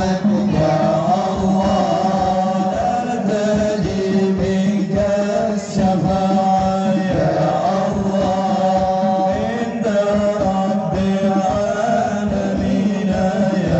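Sholawat chanted by a male voice in long, ornamented sung phrases, over a steady low tone and a quick, even drum beat.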